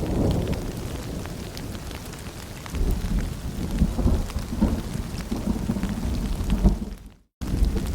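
Steady rain falling with rolling thunder. The low rumble eases off, then swells again about three seconds in, and the whole sound cuts out for a split second near the end.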